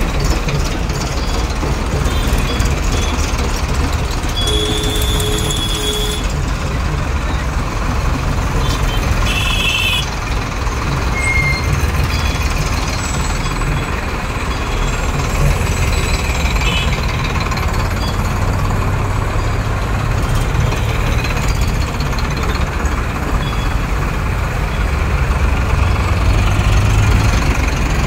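Diesel engines of a convoy of Farmtrac tractors driving past in a steady low rumble, with a short steady tone about five seconds in.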